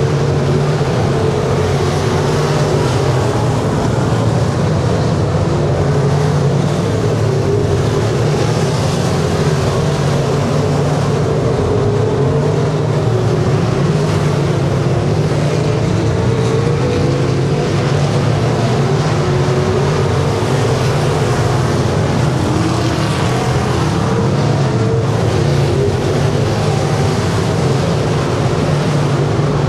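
Engines of several dirt-track super stock race cars running hard together at racing speed: a loud, continuous drone whose pitch wavers as the cars circle the oval.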